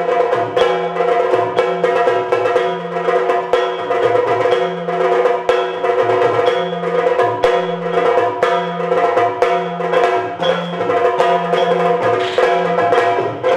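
Yakshagana ensemble music: dense, rapid chende drum strokes over a held drone, with a deeper drum beat repeating underneath.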